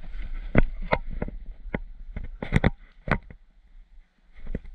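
Airsoft gunfire: a string of irregular sharp cracks and knocks, single shots and BB hits, about a dozen in the first three and a half seconds. After a short lull a few more come near the end.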